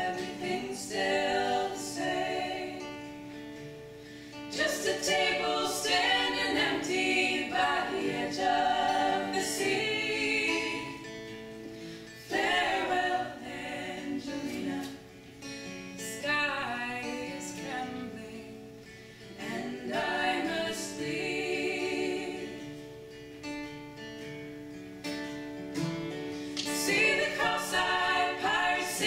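Acoustic folk song performed live: several women's voices singing in harmony over acoustic guitar and fiddle, in phrases that swell and fade every few seconds.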